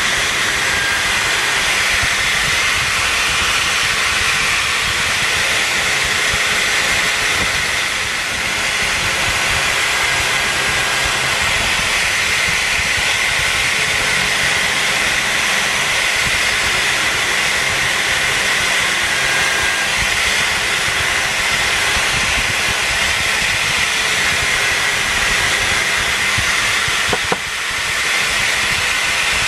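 Drill press spinning a sanding drum against the inside of a carved burl-wood kuksa cup: a steady, loud, high whirring hiss. A short click and a brief dip in level a couple of seconds before the end.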